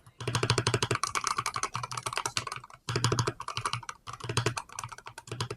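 Rapid typing on a Royal Kludge RK C61 HE magnetic-switch mechanical keyboard: a fast, steady run of keystrokes, with a few brief pauses.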